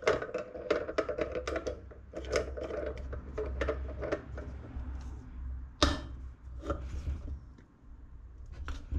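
Metal tool clicks and scrapes as a spanner works the nut of a bearing puller in a motorcycle wheel hub, tightening it to draw out a wheel bearing. A quick run of clicks, about three or four a second, is followed by one sharper clack about six seconds in and a few scattered clicks near the end.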